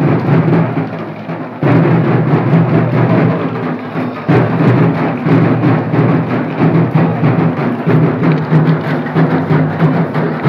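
Loud, drum-heavy procession music over the noise of a large crowd; it jumps suddenly louder about one and a half seconds in.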